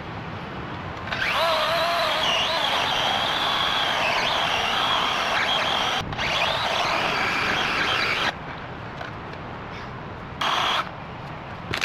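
Battery-powered electric chainsaw cutting through a fallen log: a steady motor whine whose pitch dips and recovers as the chain loads up, running for about seven seconds with a split-second stop near the middle, then a short rev about a second before the end.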